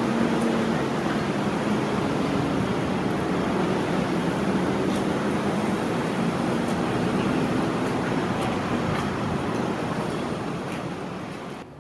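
Steady city traffic noise with a low engine hum, easing off near the end and cutting off suddenly.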